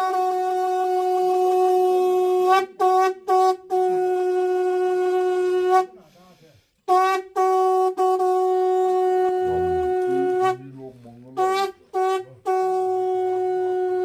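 Conch shell (shankh) blown in long held blasts on one steady note, with a few short toots between the blasts and about a second's pause a little before the middle.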